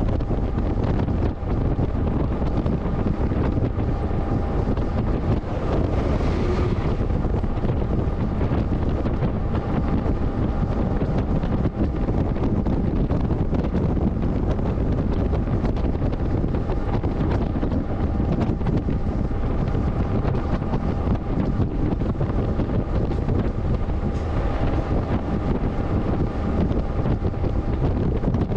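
Wind buffeting the microphone on a moving freight train, over the steady rumble of the wagons rolling on the rails, with a faint steady whine underneath.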